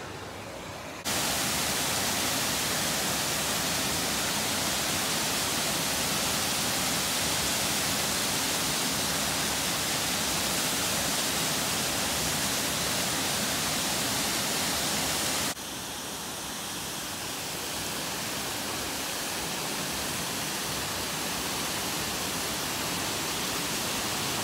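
Waterfall rushing: a steady, dense roar of falling water. It jumps louder about a second in and drops back suddenly at about 15 seconds.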